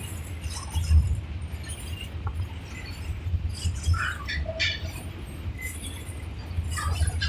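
Diesel locomotive CC 202 (EMD G26MC-2U) running, its EMD 16-645 two-stroke V16 diesel engine giving a steady, pulsing low rumble while it charges the air compressor.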